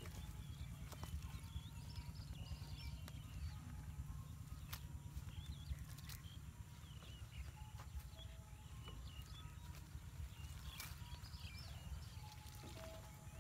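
Field ambience: a low, steady wind rumble with scattered short bird chirps and a few sharp clicks.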